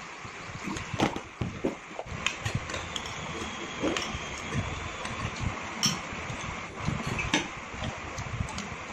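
Eating at a table: spoons and forks clinking on china plates and bowls in short sharp taps, with chewing and lip-smacking, over a steady background hiss.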